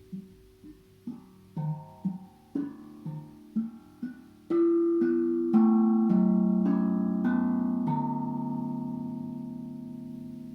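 Tank drum (steel tongue drum) played note by note: a run of soft notes about two a second, then from about halfway louder notes that ring on together and die away slowly.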